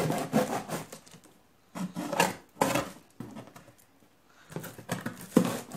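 Cardboard shipping box and packaging being opened by hand: irregular rustling, scraping and sharp crackles in short spurts, with brief pauses between them.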